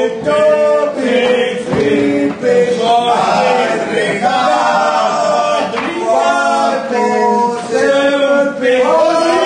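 Men's voices singing a song together in chorus, with sustained, melodic lines and no break.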